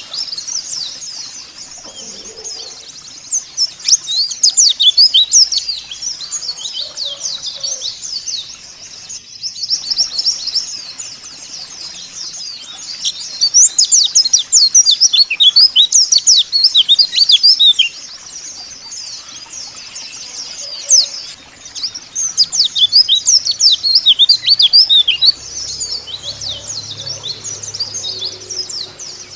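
White-eyes (pleci) chirping in a rapid, high twittering chatter, several calls overlapping. It swells into loud spells three times and falls back in between.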